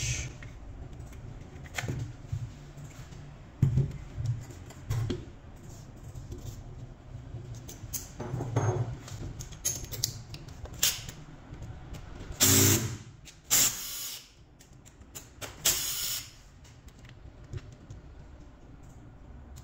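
Scattered clicks, knocks and plastic rattles of a Makita DTW1001 cordless impact wrench being handled on a bench, its battery pack unclipped and set down, with a few louder scraping bursts in the second half.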